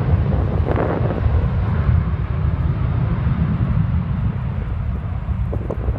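Boeing 747 on its takeoff roll, its four jet engines at takeoff power heard as a distant, steady low rumble, mixed with wind buffeting the microphone.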